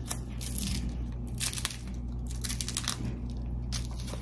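Papery tomatillo husks crackling and crinkling in irregular short crackles as they are peeled off the fruit by hand.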